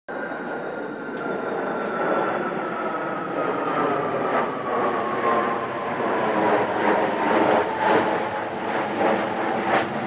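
Four F-4EJ Kai Phantom II jets in close formation passing overhead, their J79 turbojet engines making a steady jet roar with a whine that slowly falls in pitch as they go by, growing a little louder toward the end.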